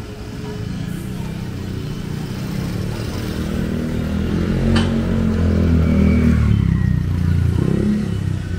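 A vehicle engine passing close by, growing louder to a peak about six seconds in and then fading, with one sharp click near the middle.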